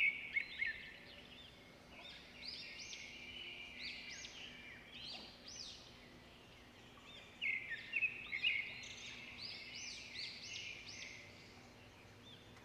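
Birds chirping: spells of quick, high, repeated chirps, loudest around the start and again about seven and a half seconds in.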